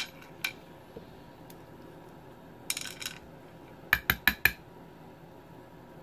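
Small metal lock-cylinder parts clicking and clinking as they are handled. Two single clicks, a short rattle about three seconds in, then four sharp clicks in quick succession.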